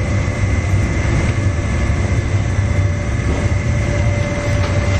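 Steady low rumble of commercial kitchen equipment, with a thin, high steady whine above it.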